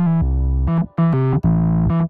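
Background music: a keyboard tune over a bass line, its notes changing a few times a second.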